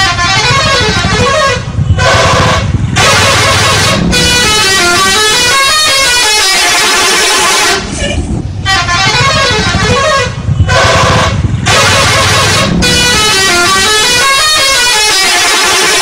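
Bus telolet horn playing its melody: several air-horn trumpets sounding together in quick stepped runs of notes that climb and fall, repeated in about half a dozen loud phrases with short breaks between them.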